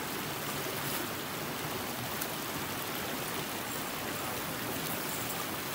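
Stream water running, a steady even rushing noise.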